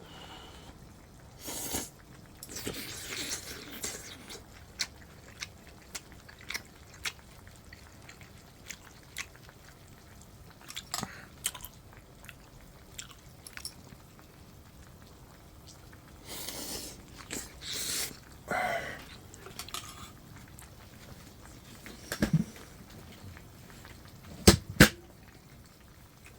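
A person eating hot pot close to the microphone: chewing and slurping, with scattered sharp clicks and two louder spells of noisy eating sounds.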